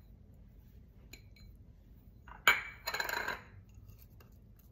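Small kitchen bowls being handled on a stone countertop: a few faint clicks, then one sharp clink about halfway through, followed by a short clatter of knocks and scraping.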